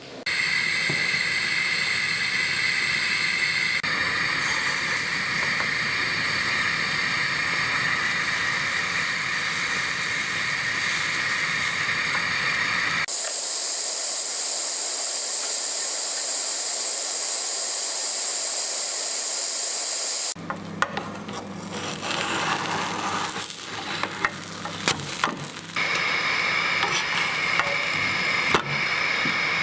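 Oat pancake batter sizzling in a hot frying pan, a steady hiss that changes character at edits about thirteen and twenty seconds in. In the last third, light clicks and taps sound over the sizzle.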